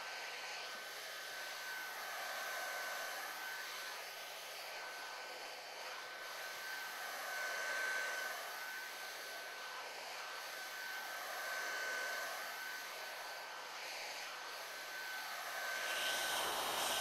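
Hot-air heat gun running steadily: a steady blowing rush with a high whine, its sound swelling and shifting slowly every couple of seconds as the gun is moved.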